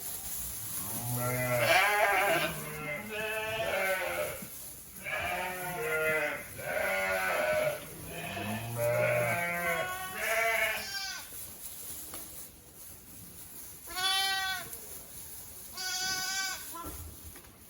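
Young bottle-fed lambs bleating: several calls overlapping one another for most of the time, then two single bleats near the end.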